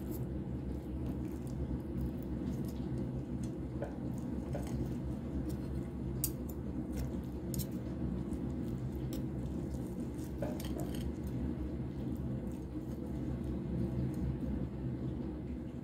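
Knife and fork cutting into a breadcrumbed fried chicken drumstick on a china plate: scattered small clicks of cutlery and crust over a steady low hum.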